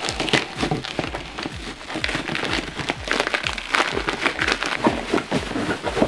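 Crinkling, crackling plastic wrapping as a parcel's clear wrap film is cut open with a blade and black plastic wrapping is pulled off it, in many quick irregular crackles.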